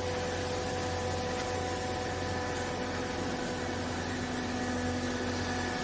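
Hydraulic baler's electric motor and pump running with a steady hum of several fixed tones; a lower tone joins about three seconds in.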